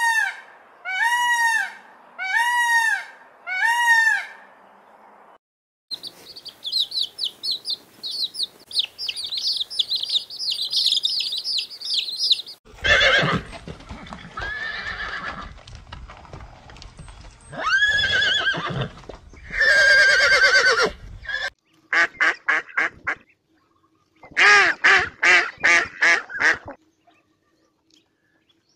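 A run of different animal calls, one clip after another: four arching honks about a second apart, then several seconds of fast high-pitched chattering, then louder harsh calls, and a quick pulsing series of cries near the end.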